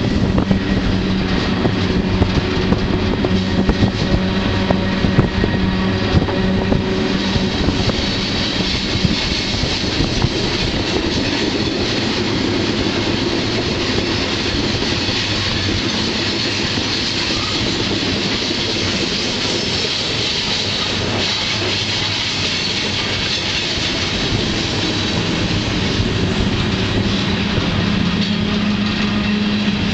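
Freight train running, heard from aboard: a steady rumble of wheels on rail with a rattling, clicking clickety-clack. A low hum drops away after about seven seconds and comes back near the end.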